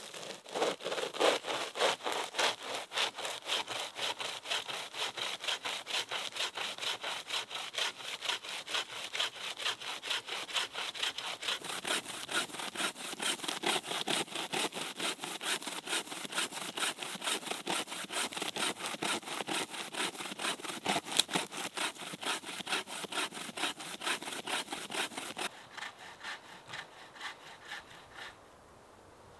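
Bow saw cutting through the trunk of a dry, dead standing tree near its base, in quick, even strokes of about three a second. The sawing stops near the end.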